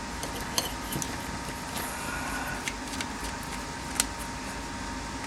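A few light clicks and taps of small steering-column parts being handled, the sharpest about four seconds in, over a steady background hum.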